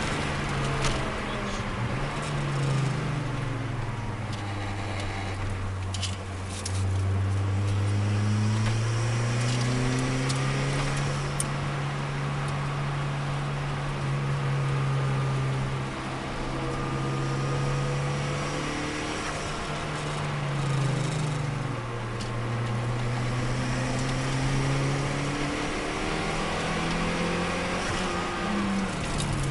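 Turbocharged Nissan Micra's engine heard from inside the cabin while lapping a circuit. The engine note climbs slowly under acceleration and drops several times as the driver lifts and changes gear, over steady road and wind noise.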